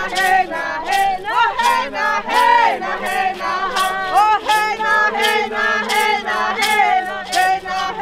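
A group of voices singing a chant together, with hand rattles (maracás) shaken in a steady beat under the song.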